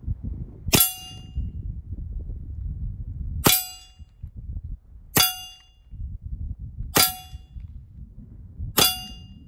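Five air pistol shots, a couple of seconds apart, each a sharp crack merged with the clang of the pellet striking a steel silhouette target, which rings briefly with a metallic tone after every hit.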